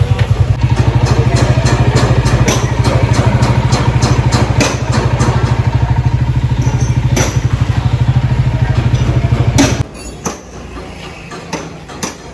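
A small engine idles close by with a fast, steady low pulse and cuts off suddenly about ten seconds in. Over it come sharp, irregular metallic knocks of a hammer striking a chisel on a car body.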